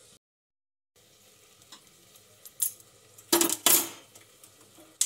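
Metal utensil clinking and scraping as a piece of ginger roasting over a gas stove flame is turned. There are a few light clicks, then two louder clatters about three and a half seconds in and a sharp click at the end, over a faint steady hum, with a brief dead-silent gap near the start.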